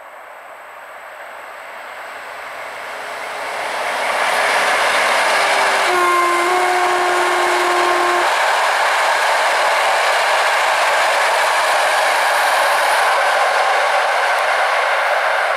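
Passenger train of Intercity coaches passing at speed: wheels and carriages rumbling on the rails, growing louder over the first four seconds and then holding loud and steady. The train's horn sounds once for about two seconds, around six seconds in.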